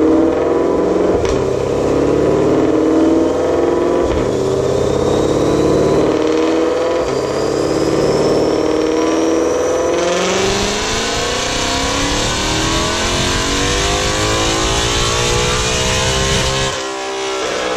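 2020 Shelby GT500's supercharged 5.2 L V8, breathing through a Lethal Performance track exhaust, makes a full-throttle pull on a chassis dyno. The engine note climbs for about ten seconds with a rising supercharger whine, then the throttle closes and the engine winds down with falling pitch while a loud rushing noise carries on.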